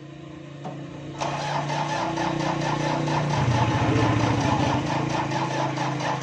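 A small engine running. It is much louder from about a second in, with fast, even firing pulses, and its low note drops a little past the middle.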